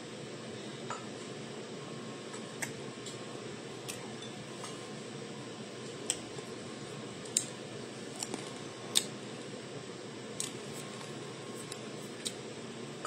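Steady low room hum and hiss, with about ten sharp light clicks or ticks scattered at uneven intervals; the loudest comes about nine seconds in.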